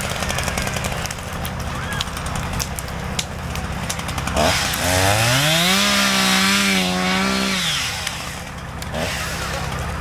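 Chainsaw running at a low idle, then revved up about halfway through, held at full throttle for a couple of seconds, and let back down to idle.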